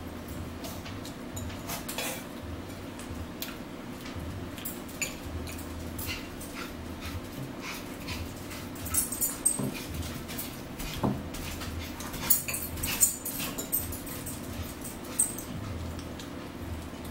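Forks clinking and scraping on plates and a salad bowl, with chewing, over a steady low hum. The loudest stretch is a run of sharp clinks and scrapes in the middle.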